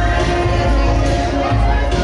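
Live band music through a PA system, with a heavy bass line and held, pitched notes over a steady beat, and crowd voices underneath.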